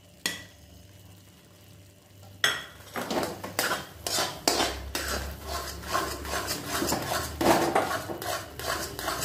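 A spoon stirs and scrapes through thick semolina halwa in a metal kadhai, in repeated strokes of about two to three a second that start about two and a half seconds in after a quiet moment.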